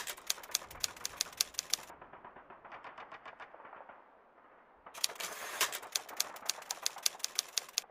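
Typewriter keystroke sound effect: two runs of quick clacking keys, the second beginning about five seconds in, with a fainter patter of keys between them.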